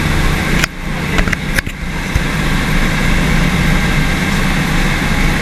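Glass-bottom tour boat's engine running steadily, a low hum heard from inside the boat's underwater viewing hull.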